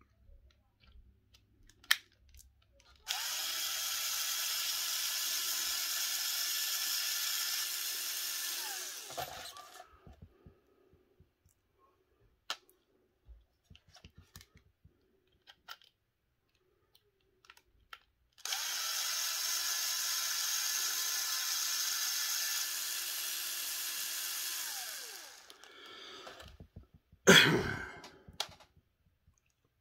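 Cordless drill-driver backing small screws out of an RC differential case: it runs twice, about six seconds each time, with a steady whine that winds down when the trigger is released. Small clicks between the runs, and a loud clatter near the end.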